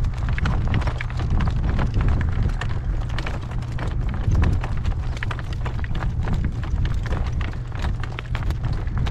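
A horse's hooves clip-clopping along a dirt path as it pulls a cart, many quick hoof strikes in a running rhythm over a steady low rumble.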